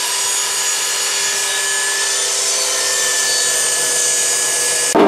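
Table saw running and cutting a wooden board: a steady motor whine with the rasp of the blade in the wood. It breaks off abruptly near the end.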